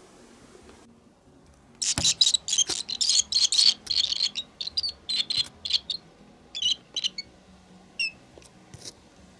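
Barn swallow nestlings chirping rapidly in a dense burst of high, short calls that starts about two seconds in and lasts around five seconds, typical of begging for food, then a few single chirps near the end.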